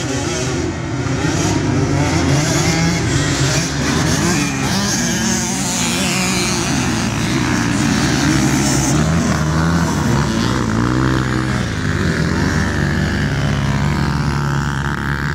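A pack of dirt bikes revving together off the start line and accelerating past. Many engines overlap, their pitch rising and falling as the riders work the throttles.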